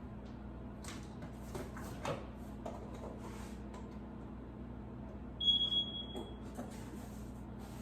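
A single high-pitched electronic beep lasting just under a second, over a steady low hum and a few light clicks.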